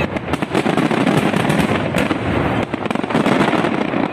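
Fireworks going off in a dense, continuous barrage of rapid cracks and pops.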